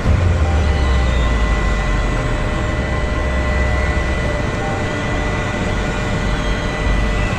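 Heavy road-paving machinery running steadily: a deep engine rumble with a thin, steady high whine over it.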